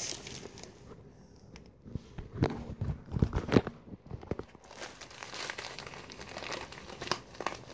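Plastic bag of sand crinkling and rustling as it is picked up and handled, with a burst of loud sharp rustles and knocks about two to four seconds in and quieter crackling after.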